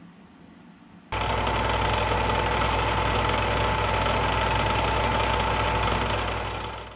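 Vertical milling machine running a face mill across a cast iron straight edge, taking a light first pass of about a ten-thousandth of an inch. The machine noise starts abruptly about a second in, runs steadily with a constant tone in it, and fades near the end.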